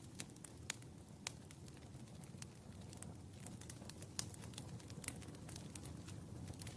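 Wood fire burning in a fireplace: irregular sharp crackles and pops over a soft low rumble of the flames, with the loudest pop about four seconds in.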